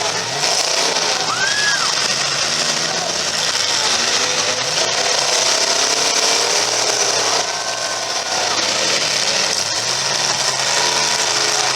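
Demolition derby cars' engines running and revving in a loud, steady din, with voices mixed in.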